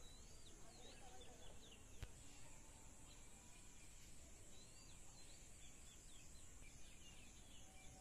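Faint outdoor garden ambience: small birds chirping in short quick calls near the start and again after about four and a half seconds, over a steady high-pitched insect buzz. A single faint click about two seconds in.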